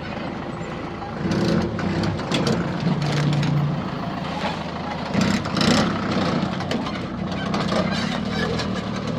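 A vehicle engine running steadily, with scattered knocks and clatter over it.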